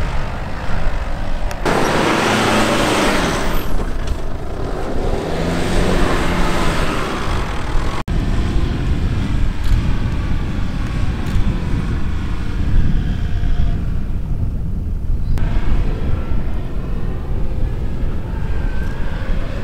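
SUV engines running hard as the 4x4s climb a loose sand dune, with a steady heavy rumble that swells louder about two seconds in. The sound cuts out for an instant about eight seconds in.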